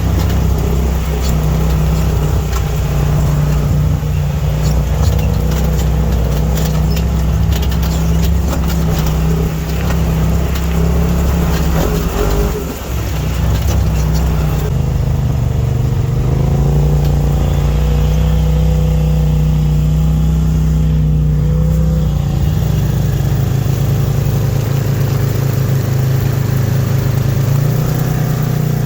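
Polaris side-by-side UTV engine running while driving on a trail. The engine speed rises and falls, with a brief drop-off about twelve seconds in.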